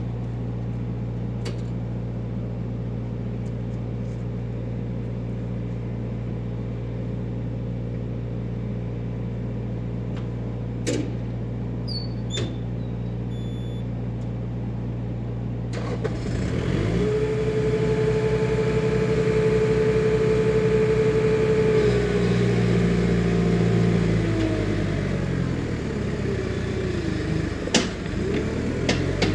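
Diesel engine of compact construction equipment running steadily, then working harder about halfway through, louder and joined by a steady higher whine, before easing off near the end.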